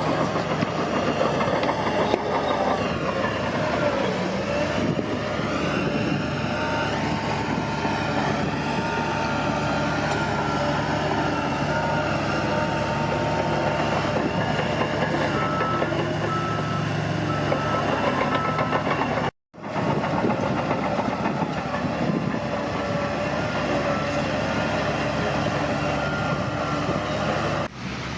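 Bulldozer diesel engine running steadily under load, with its tracks working. A reversing alarm beeps at intervals about halfway through. The sound cuts out briefly about two-thirds of the way through.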